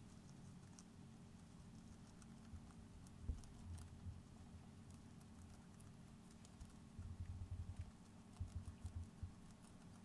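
Syrian hamsters chewing cabbage leaves: faint, crisp little crunching clicks scattered throughout, with a few soft low thumps about a third of the way in and in the second half.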